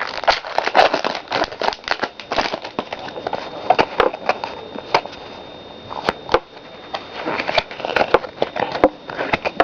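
Foil wrapper of a Pokémon booster pack crinkling and crackling as it is torn open and handled, a dense run of sharp crackles that thins out about halfway through.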